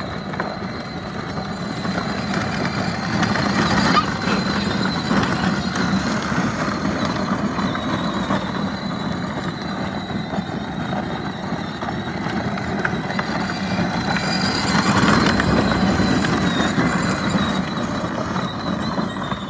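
Side-by-side UTV running while being driven, with a steady high whine over the mechanical noise. The noise swells louder about 4 seconds in and again around 15 seconds.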